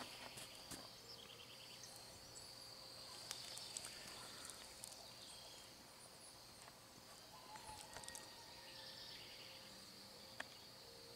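Faint outdoor ambience: a steady high-pitched insect trill, with two short runs of quick chirps and a single sharp click near the end.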